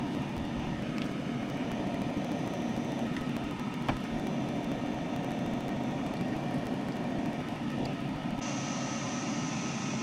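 Steady whooshing of a workbench blower fan running continuously, with a couple of faint small clicks from handling the circuit board; the high hiss drops out near the end.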